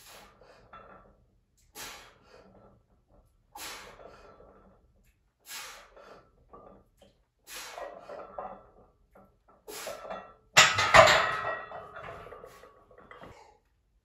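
A lifter's breaths, one short burst about every two seconds with each bench-press rep. About ten and a half seconds in, the loaded barbell is racked in the steel uprights with a loud metal clank that rings on for a couple of seconds.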